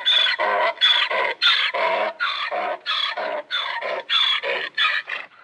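Donkey braying: a fast run of hee-haw calls, higher and lower notes in turn, two or three a second, growing weaker toward the end and stopping.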